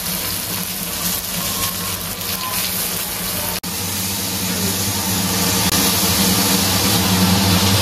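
Oil sizzling steadily under a banana-leaf-wrapped fish parcel frying on a hot iron tawa, with a steady low hum underneath. The sound breaks off for an instant a little over three seconds in, then the hiss and hum carry on.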